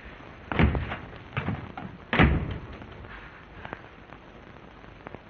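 A few dull thumps, the third the loudest, followed by a fainter knock, over the steady hiss of an old film soundtrack.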